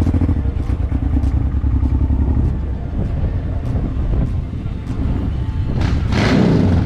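Motorcycle engine running at low speed, a steady low throb of firing pulses, with a louder rush of noise lasting about a second near the end.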